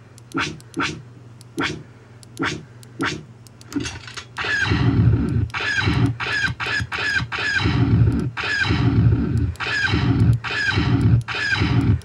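Star Wars E11 blaster sound effects played back by an Arduino-driven MP3 sound board as its buttons are pressed. Short single shots a half-second or more apart for the first four seconds, then a rapid, louder run of overlapping shots for the rest.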